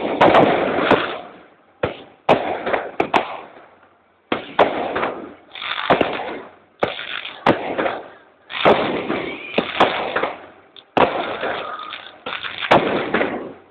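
Aerial firework shells bursting overhead in quick succession, about a dozen sharp bangs, each trailing off over a second or so.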